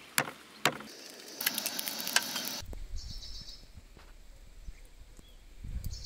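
Two sharp taps, pounding thin chicken-breast slices flat on a wooden chopping board, in the first second. After that, outdoor ambience: a low rumble of wind on the microphone, with a brief high chirp of an insect or bird.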